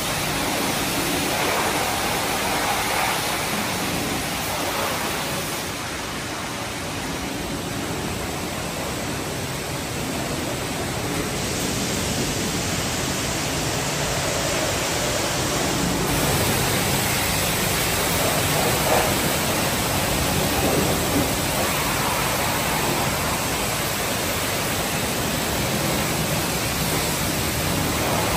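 High-pressure car-wash wand spraying water against a minivan's body and wheels: a steady hiss of spray.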